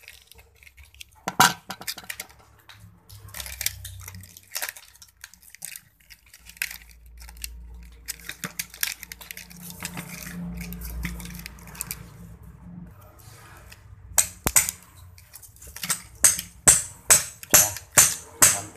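Small metallic clicks and rustles from a power-tool motor armature being hand-rewound with copper wire, with a low rumble in the middle. Near the end comes a quick run of sharp metallic clicks, about two a second.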